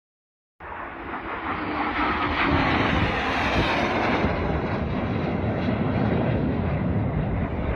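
BAE Hawk T1 jet's Rolls-Royce Adour turbofan on a low-level pass. The jet noise starts abruptly about half a second in, swells over the next two seconds and stays loud, with a whine that falls in pitch as the aircraft goes by.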